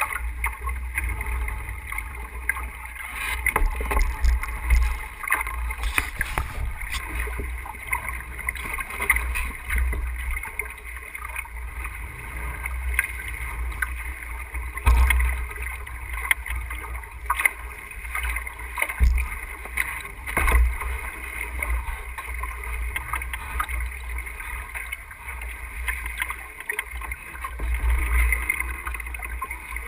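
Wind buffeting a bow-mounted camera's microphone as a sailboat runs under way, with water rushing along the hull and scattered sharp knocks.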